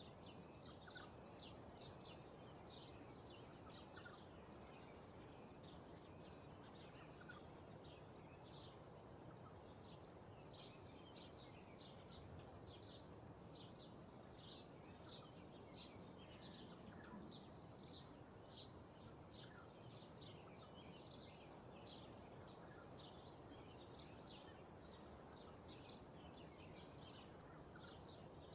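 Faint field ambience: many quick, high bird chirps over a steady low rush of wind.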